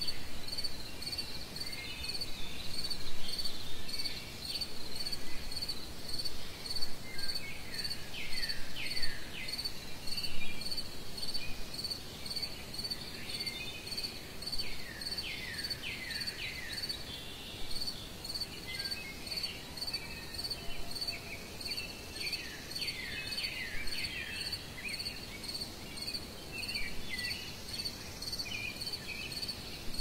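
A cricket chirping steadily in even high pulses, a little under two a second, with birds calling now and then in quick runs of falling notes.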